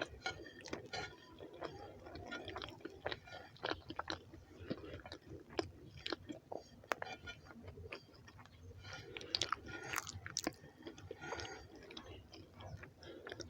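Close-miked chewing of rice and beans: irregular wet mouth clicks and smacks, with a few sharper crisp bites.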